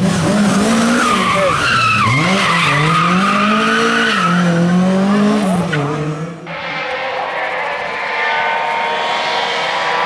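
Rally car engine revving hard on a stage, its pitch climbing and dropping through gear changes and lifts. About six seconds in there is an abrupt cut to another rally car, whose engine holds a steadier, higher note.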